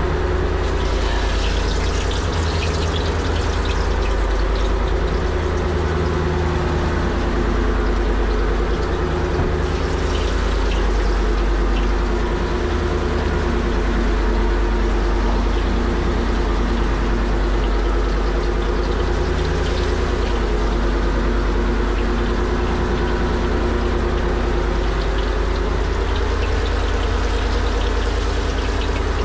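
Fishing boat's engine running steadily, with a rushing hiss of water and wind over it.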